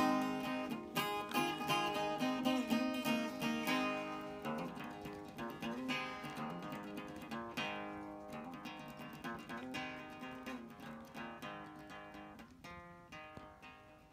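Background music of plucked and strummed acoustic guitar, fading out steadily to near silence by the end.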